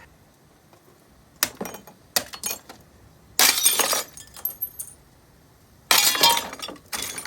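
Glass coffee-maker carafe being smashed with a pipe: a series of strikes, the loudest two about three and a half and six seconds in, each followed by shattering and tinkling glass.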